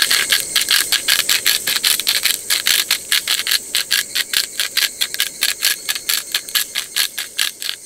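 Hand-twisted salt grinder grinding, a fast run of crisp ratcheting crunches at about six a second. Insects drone steadily behind it.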